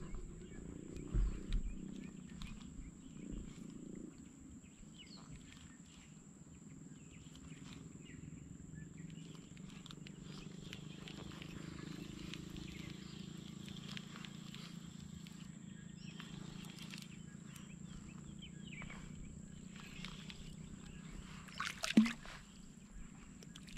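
Spinning reel cranked steadily as a lure is retrieved, a low continuous whir with small clicks. About 22 s in, a brief sharp, loud noise comes as a fish strikes and the rod bends.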